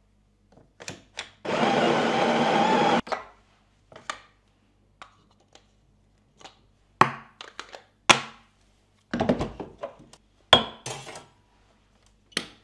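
Built-in burr grinder of a touchscreen espresso machine grinding coffee for about a second and a half. It is followed by a series of sharp clicks and knocks as the portafilter is handled, tamped and locked into the group head.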